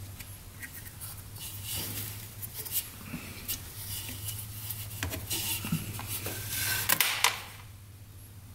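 Small metal engine parts being handled on a workbench: scattered light clicks and clinks, with a louder rustle near the end, over a steady low hum.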